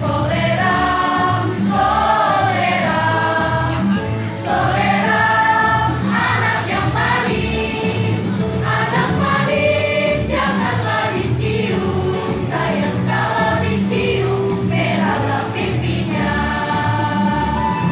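A school choir singing together, carried through a microphone, over a steady, evenly pulsing low accompaniment.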